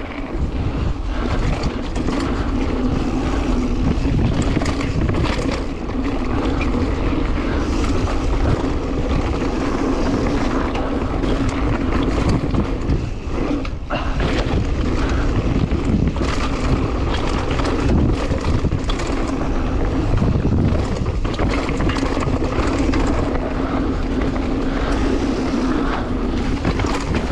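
Mountain bike descending a rough downhill trail, heard from a GoPro on the rider: a steady rumble of tyres and wind buffeting the microphone, with many sharp knocks and rattles as the bike goes over rough ground.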